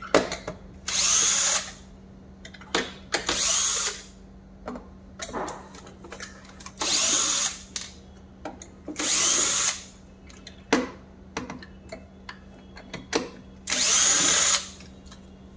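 Cordless drill-driver backing screws out of a vacuum cleaner's plastic motor housing: five short runs, each under a second, with clicks and knocks of handling between them.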